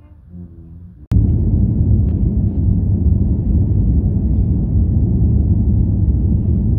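Faint band music, then a sudden cut about a second in to the loud, steady low rumble of an airliner in flight, heard inside the cabin.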